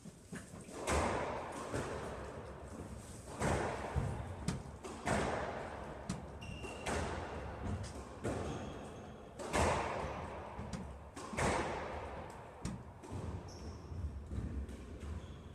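Squash rally: the ball struck by rackets and smacking the court walls, a sharp hit with a ringing echo about every one and a half to two seconds.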